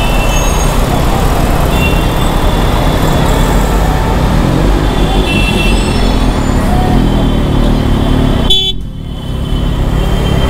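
Kawasaki Ninja ZX-6R inline-four engine running at low speed in dense street traffic, with other vehicles' horns tooting in short toots throughout. The sound briefly dips about eight and a half seconds in.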